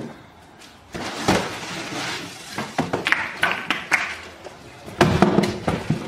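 Cardboard carton being lifted and slid off a boxed fridge: rustling and scraping of cardboard and plastic wrap with scattered taps, starting about a second in, and a few louder knocks near the end.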